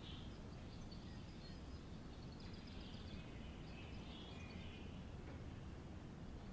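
Quiet background ambience: a low steady hum with faint bird chirps over the first few seconds.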